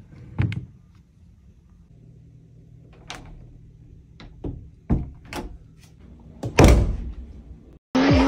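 Interior house doors being handled: a series of clicks and knocks from latches and knobs, with the loudest thud, a door shutting, about six and a half seconds in. Just before the end it cuts abruptly to loud music over a sports car's engine.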